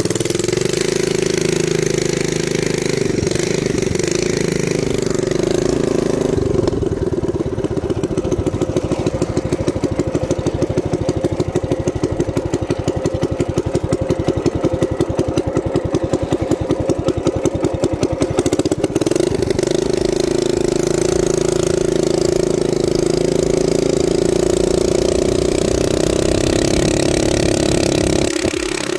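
A mini bike's small single-cylinder engine, fitted with an aftermarket Mikuni carburetor and a straight-pipe header, running on a test ride. It holds a steady note at first. From about six seconds to about nineteen seconds it drops to a slower, pulsing note in which single firings can be picked out, then settles back to the steady note.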